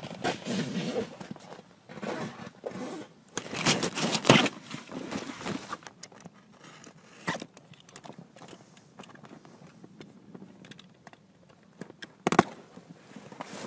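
Utility knife slicing through the fabric of a deflated inflatable boat tube, a run of scraping, ripping strokes, dense and loud for the first six seconds, then sparser and quieter, with one sharp rip about twelve seconds in.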